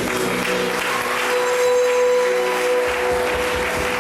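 Audience applauding over background music.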